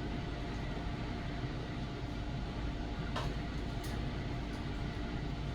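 Steady background hum of room noise with a faint steady tone, like a fan or air conditioner running. Two faint light clicks, about three and four seconds in.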